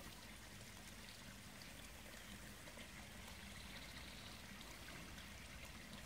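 Faint, steady splashing of water pouring into a koi pond, where an inflow churns and bubbles the surface.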